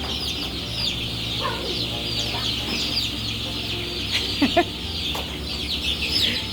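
A flock of four-week-old chickens cheeping in a poultry house: a dense, constant chorus of short, high, falling chirps over a low, steady hum. A few louder calls stand out about four and a half seconds in.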